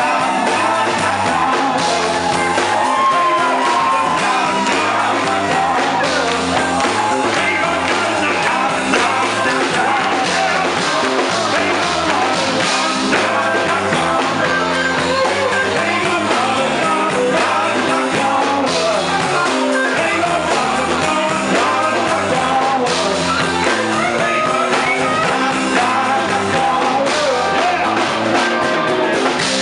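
Live rock band playing: a man singing into a microphone over electric guitar, electric bass and drum kit.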